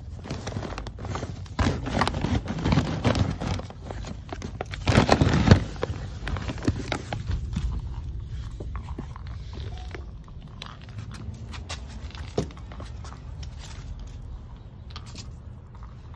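Irregular scraping, rustling and clicking of handling and movement, as a puppy paws about and the phone is carried, with a louder rustling burst about five seconds in.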